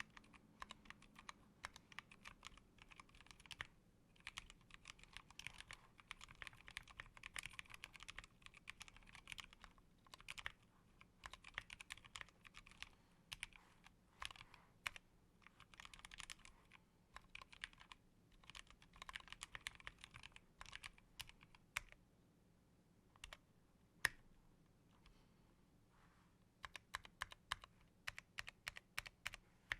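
Typing sound test on a Massdrop ALT High Profile mechanical keyboard with Halo True switches lubed with Krytox 205 and clipped, lubed genuine Cherry stabilizers: fast runs of keystrokes, thinning to a few single presses with one louder stroke about three-quarters of the way through, then picking up again.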